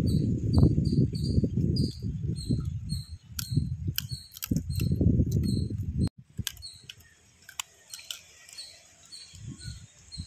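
Outdoor ambience with short high chirps repeating in runs of about four a second, under a loud low rumble on the microphone that cuts off abruptly about six seconds in. Scattered sharp clicks and cracks come from crab shells being broken apart by hand and eaten.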